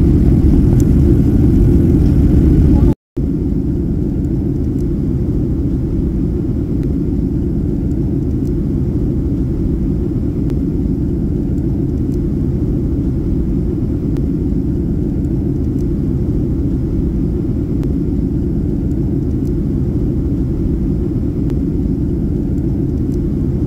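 Steady low rumble inside the cabin of a Boeing 737 airliner in descent: jet engine and airflow noise. It cuts out for a moment about three seconds in, then carries on slightly quieter.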